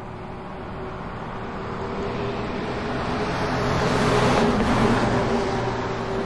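A motor vehicle driving past on the road. Its engine and tyre noise swell gradually, peak about four to five seconds in, then fade as it moves away.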